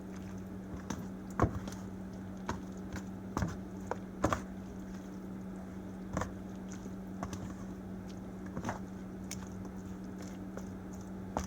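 A utensil stirring a microwaved frozen meal in its plastic tray, giving irregular clicks and knocks against the tray, some of them sharper taps. A steady low hum runs underneath.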